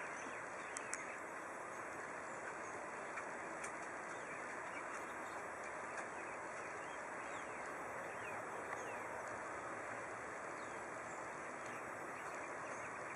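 Distant Boeing 737-800's CFM56-7B engines running steadily at low power as the airliner taxis along the runway, heard as an even noise, with a few faint bird chirps.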